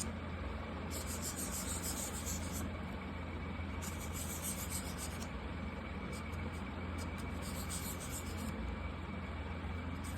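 Felt-tip marker tip rubbing across paper in long colouring strokes, each lasting a second or two, over a steady low hum.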